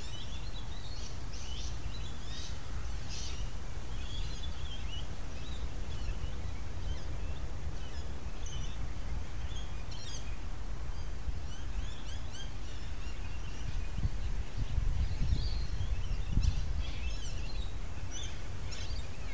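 Birds chirping and calling in short, scattered notes over a steady low outdoor rumble. The rumble swells, with a few louder low knocks, from about fourteen to seventeen seconds in.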